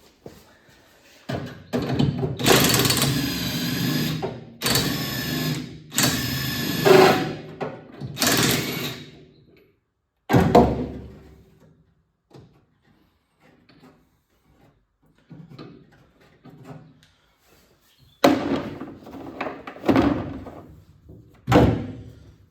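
A power tool run in a series of short bursts, each one to three seconds long, with a few faint knocks in a quieter stretch between them. The tool is undoing the upper shock absorber mounts.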